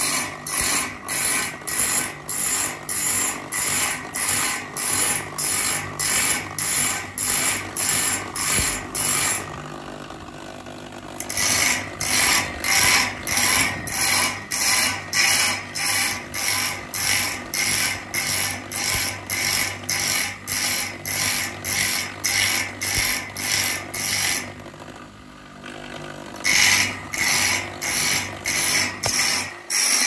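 Electric grinding wheel sharpening a bandsaw blade one tooth at a time: a rhythmic grinding rasp about two and a half times a second. It pauses twice for a couple of seconds, about a third of the way in and again past the three-quarter mark.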